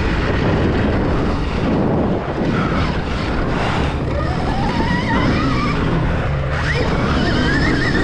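Stark Varg electric motocross bike being ridden hard on a dirt track, its motor whine rising in pitch several times as it accelerates, under heavy wind buffeting on the camera microphone.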